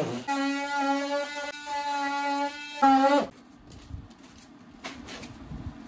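Cordless oscillating multi-tool running with a steady buzzing tone as its blade cuts into foam. It stops a little past halfway, leaving faint knocks as loose foam chunks are pulled out by hand.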